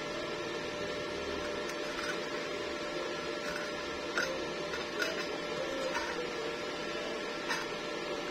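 A steady hum with a faint whine, broken by a few light clicks.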